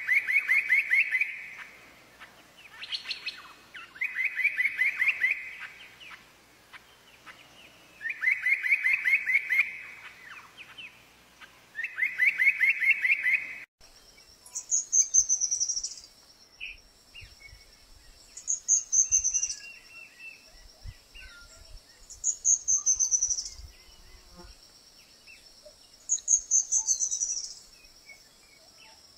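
Wild songbirds singing: one bird repeats a short trilled phrase about every four seconds, then after a sudden cut about halfway through a different, higher-pitched bird repeats its own short falling trill at a similar pace.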